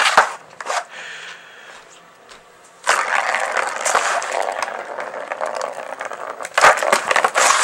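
Plastic ball rolling around the circular plastic track of a cat scratcher toy as a cat bats at it: a steady rolling rattle for a few seconds, then several sharp knocks of paw and ball against the plastic near the end.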